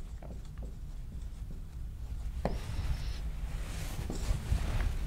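Dry-erase marker writing on a whiteboard: faint scratchy strokes and small taps, with a brief high squeak about two and a half seconds in.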